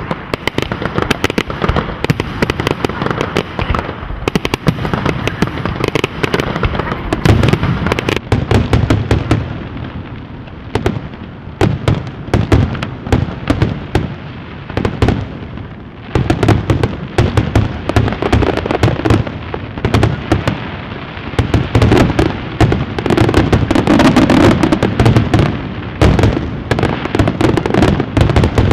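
Fireworks going off without a break: dense rapid crackling and popping, with heavier booms from larger shells at several points.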